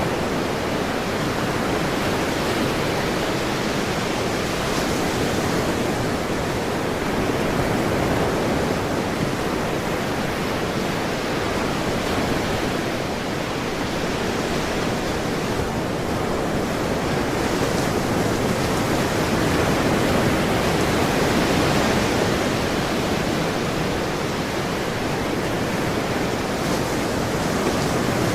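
Ocean surf: a continuous wash of waves on a shore, swelling gently in loudness now and then.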